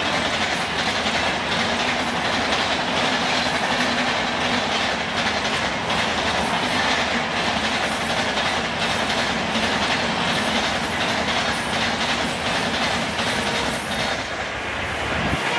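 Long express passenger train of Indian Railways coaches running past at speed: a steady rushing rumble with wheels clattering over the rail joints, easing a little near the end.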